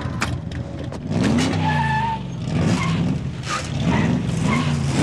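Sports car engine revving hard as the car accelerates away, its pitch climbing and dropping with each gear change, with a brief tyre squeal about two seconds in.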